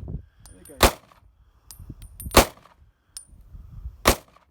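Three pistol shots, about a second and a half apart, of .45 GAP rounds fired from a Glock 37 Gen 4 slide on a Polymer80 PF940CL frame. Faint, high, pinging ticks sound between the shots.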